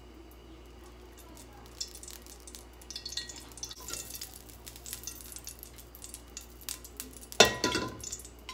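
Cooking oil heating in a deep metal pan, crackling and spitting in small irregular pops. About seven seconds in comes a loud metallic clank of the pan with a short ring.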